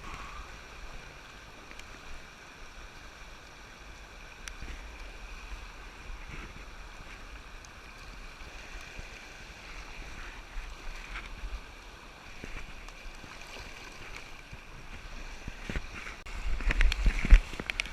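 River water running steadily. Near the end comes a burst of rough low rumbling and sharp knocks close to the microphone.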